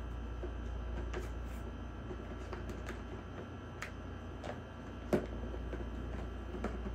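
Irregular light plastic clicks and clacks from a cat batting a ball around a circular plastic track toy, the loudest about five seconds in, over a steady background hum.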